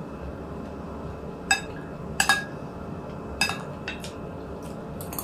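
Dishes clinking: about six short, sharp clinks spread over a few seconds, some with a brief ring.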